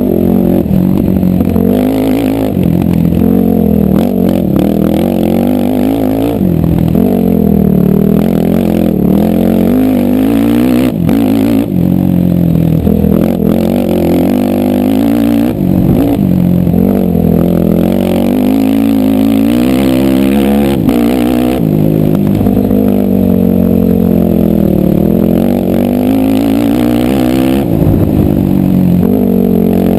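Quad (ATV) engine being ridden hard, revving up and down every couple of seconds as the throttle opens and closes, with occasional brief clatters.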